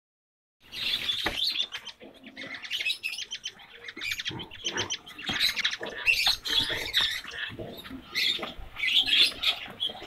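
Caged Bengalese finches chirping and calling, a dense, quick run of short high notes that starts under a second in and keeps on.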